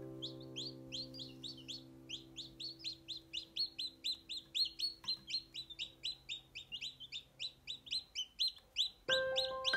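Newly hatched chicks peeping continuously, about four or five short, high, falling peeps a second, over a held music chord. Bright chime-like music notes come in near the end.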